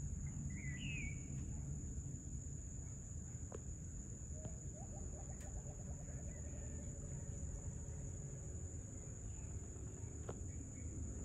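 Evening insect chorus, a steady high-pitched buzz, over a low background rumble, with a brief bird chirp about a second in.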